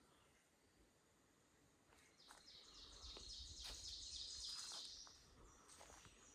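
Faint songbird singing one rapid trill of quickly repeated high notes lasting about three seconds, beginning about two seconds in, with a few faint clicks over quiet woodland background.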